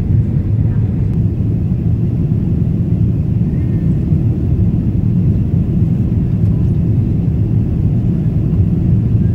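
Airliner cabin noise in flight: the engines and rushing air make a steady low roar with no change in pitch or level.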